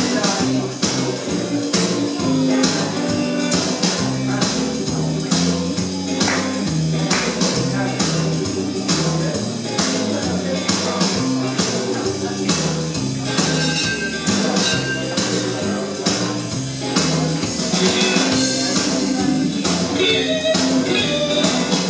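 Instrumental break of a rockabilly backing track played over a PA: a walking bass line and guitar over a steady beat.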